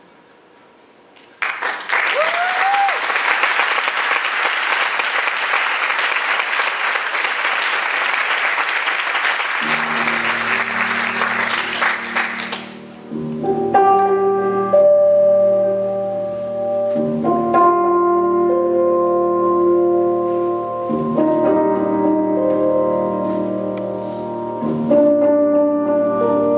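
Theatre audience applauding, starting about a second and a half in with one short rising cheer, then cutting off after about eleven seconds. Quiet piano music with sustained low chords comes in under the applause and continues alone after it stops.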